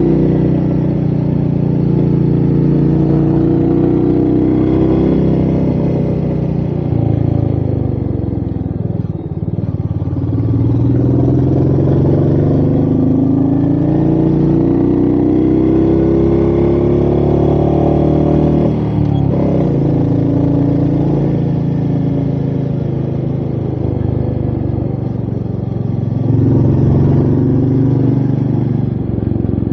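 Royal Enfield Meteor 350's single-cylinder engine pulling the bike uphill, revs rising and falling again and again. There are brief breaks about a third and two thirds of the way through.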